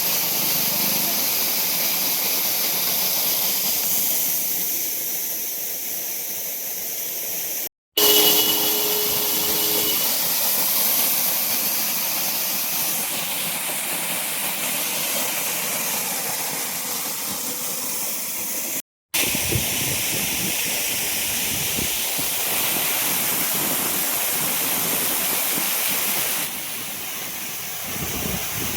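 Monsoon waterfall's rushing water: a steady, loud hiss, broken twice by brief dropouts at edit cuts. Just after the first dropout a steady two-pitch tone sounds for about two seconds.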